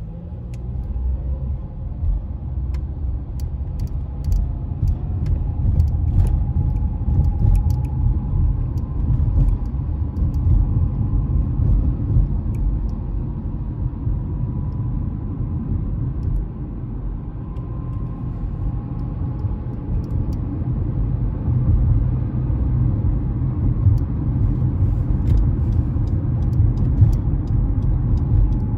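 Honda CR-V driving on the road: a steady low rumble of tyres and engine with a faint whine, getting louder in the first second and then holding level.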